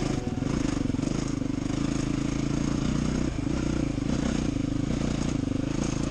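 Enduro motorcycle engine running steadily as the bike is ridden over a rough field, heard from the rider's own bike with wind noise on the microphone.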